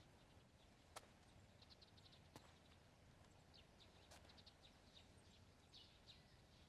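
Near silence with faint ambient chirping of small birds, short quick chirps in scattered clusters, and three soft clicks.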